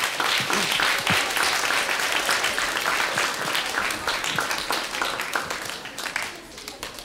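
Audience applauding: a dense round of clapping that thins out and fades near the end.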